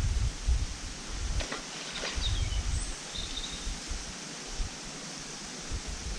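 Outdoor riverbank ambience: wind rustling leaves and buffeting the microphone as an uneven low rumble over a steady hiss. Two faint clicks come about one and a half and two seconds in, with a few short high chirps just after.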